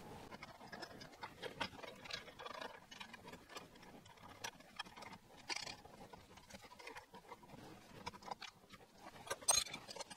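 Faint, scattered light clicks and ticks of small metal fittings being handled and seated at the top of a motorcycle upside-down fork, with a few sharper clicks near the end.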